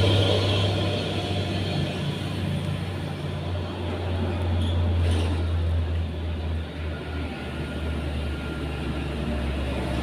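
Steady low engine rumble of motor traffic, easing slightly over the first couple of seconds.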